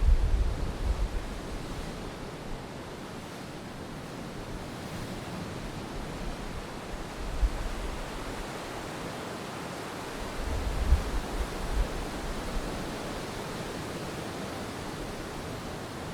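Gentle ocean waves washing on the shore of Monterey Bay, a steady hiss of surf with low rumbles near the start and again about ten to twelve seconds in.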